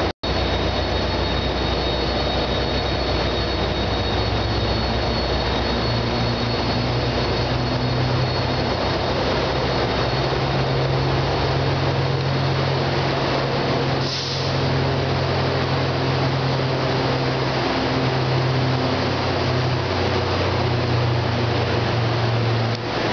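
New Jersey Transit ALP-45DP dual-mode locomotive running on its diesel engines, a steady low drone with a faint high whine on top.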